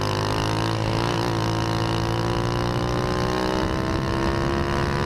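Single-cylinder 110 cc kart engine running at speed, heard from on board, its note climbing slowly and steadily as it accelerates.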